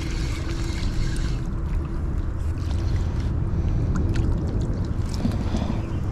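A distant engine's steady low rumble with a constant hum.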